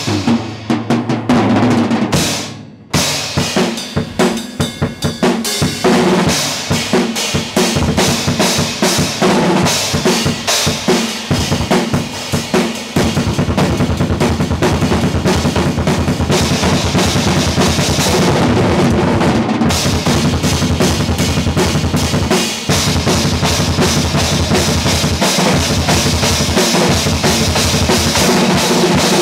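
Acoustic drum kit played hard and fast: toms, snare and cymbals struck in dense fills under a constant cymbal wash, with a brief break about two and a half seconds in. From about halfway on, the low drum strokes run in a fast, even stream beneath the cymbals.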